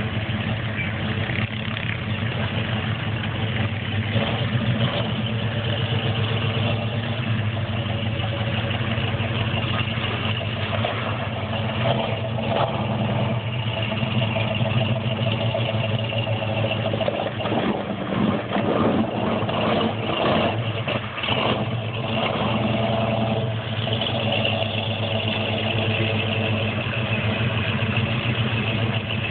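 Lifted Chevy 4x4 pickup's engine running steadily at low speed as the truck wades through a water hole, with a stretch of uneven revving about two-thirds of the way through.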